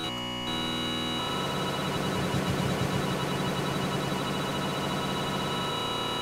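Sustained synth drone made from a tiny looped slice of a field recording, played in Ableton Live's Simpler. Its tone changes a few times as the sample start point is moved, with a denser, busier stretch in the middle.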